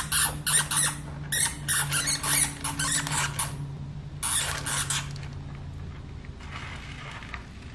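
Dwarf Campbell hamster scrabbling and rustling in pellet bedding: quick bursts of dry scratching for about three seconds, another short run about four seconds in, then only faint rustling, over a steady low hum.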